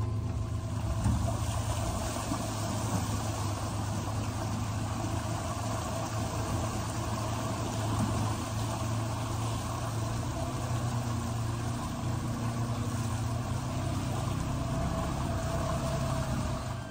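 Side-by-side UTV engine running steadily under way, its lugged tyre churning through a muddy puddle and splashing water.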